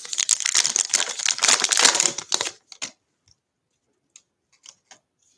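Foil wrapper of a 2020 Bowman baseball card pack being torn open and crinkled for about two and a half seconds, then a few faint ticks as the cards are handled.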